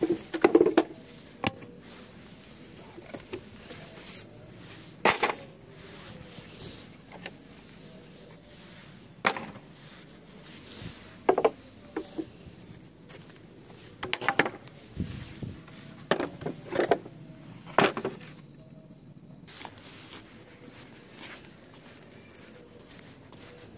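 Irregular sharp knocks and clatters, about a dozen, the loudest near the start: poles and pipes knocking together as they are picked up from a pile and handled.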